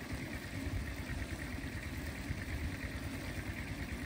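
Cooking fire burning steadily with a low rumble under a large pot of rice giving off a lot of steam.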